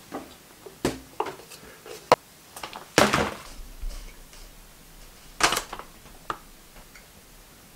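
Plastic supplement containers set down and handled on a table: a protein-powder tub, a pouch and shaker cups giving a string of sharp knocks and clatters, the loudest about three seconds in and again about five and a half seconds in.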